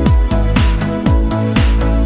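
Electronic dance music with a steady kick-drum beat, about two beats a second, under sustained synth chords.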